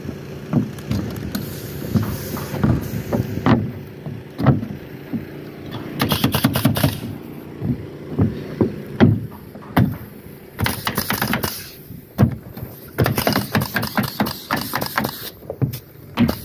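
Work boots stepping on OSB subfloor sheathing, giving hollow thuds about once or twice a second, with a few spells of rapid clicking and rattling.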